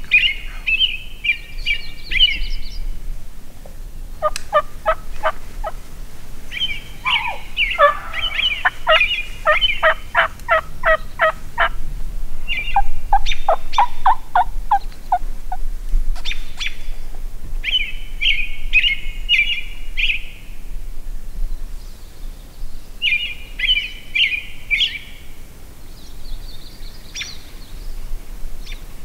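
Wild Merriam's turkey gobblers gobbling several times, rattling calls near the start and twice again in the second half. In between, a long run of evenly spaced turkey yelps, some gobbling over it.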